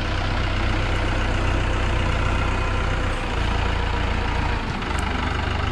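A vehicle's engine running steadily at low revs, a constant low rumble close by.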